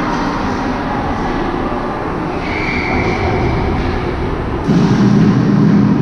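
Steady rumbling ambient noise of an indoor ice hockey rink during play. A faint high tone is heard briefly midway, and about three-quarters of the way through a louder low hum comes in and holds.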